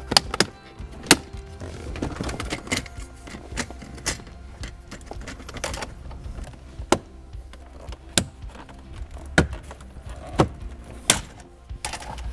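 Plastic dash trim clips snapping loose as the panels are pried off with a tape-wrapped flathead screwdriver: a string of sharp clicks and snaps at irregular intervals, over background music.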